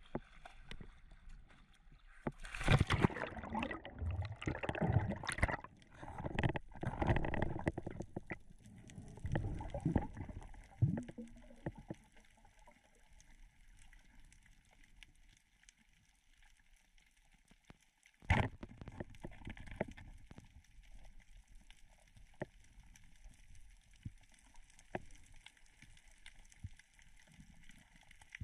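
Water sloshing and gurgling around a free-diving spearfisher's camera, in heavy irregular bursts for the first dozen seconds, then quieter with scattered faint clicks and one sharp knock about eighteen seconds in.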